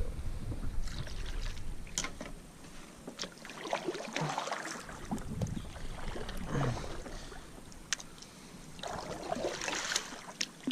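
Water splashing and lapping around a fishing kayak, with scattered small knocks and clicks against the hull.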